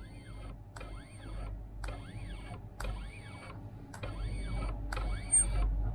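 Stepper motor of a 3018 Pro desktop CNC router driving the Z axis down in short jog moves, about one a second. Each move is a brief whine that rises and falls in pitch as the motor speeds up and slows down, over a low steady hum.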